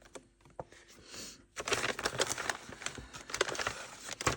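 Packaging rustling and crinkling as a ritual kit's contents are handled and unpacked, with small clicks and crackles; a few faint clicks at first, then steady crinkling from about a second and a half in.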